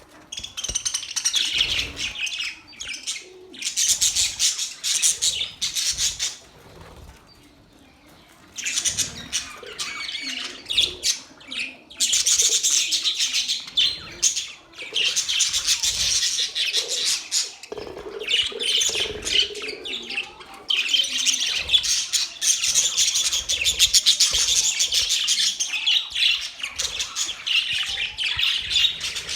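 Pet budgerigars chattering and chirping in a dense, rapid, high warble that comes in bouts, with a quieter lull about seven seconds in.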